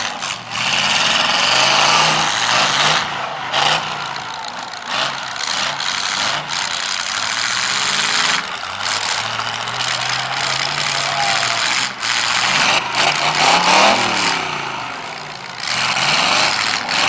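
Several demolition derby cars' engines revving and running hard together, their pitch rising and falling, with a few sharp bangs from cars ramming each other.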